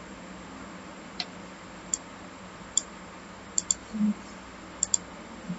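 Computer mouse buttons clicking: about seven short, sharp clicks, including two quick double clicks in the second half, over a steady faint hiss.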